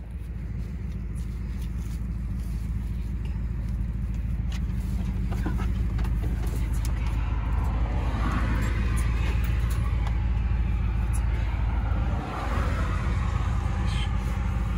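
Steady low rumble of a car's running engine heard from inside the vehicle, building over the first couple of seconds, with faint murmured voices now and then.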